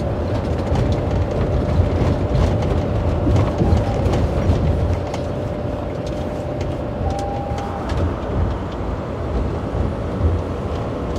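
Inside a semi truck's cab at highway speed: the steady low drone of engine and road noise, with a faint steady hum over it and a brief higher tone about seven seconds in.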